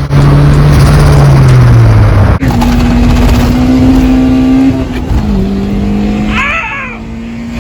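Car engine running at steady high revs, with an abrupt cut about two and a half seconds in to another stretch of engine sound that drops in pitch about five seconds in. A brief wavering squeal comes near the end.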